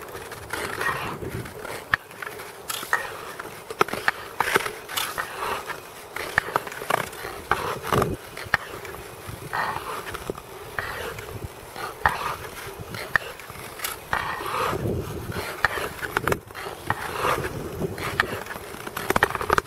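Long-distance ice skates on clear lake ice: the blades scrape in repeated strokes, about one a second, with sharp clicks and ticks between them.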